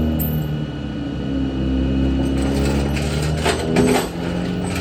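Tow truck's engine running steadily, with a few short knocks of metal about three and a half seconds in.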